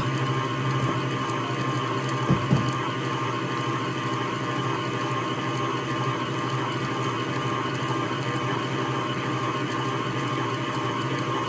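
Hamilton Beach stand mixer running steadily, its motor humming as the beater works a thick cake batter in a stainless steel bowl, with two short knocks in the first few seconds.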